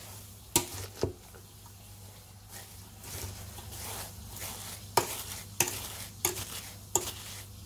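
Wooden spoon mashing and grinding firm lingonberries with sugar by hand: a wet, scraping stir broken by about six sharp knocks of the spoon against the container.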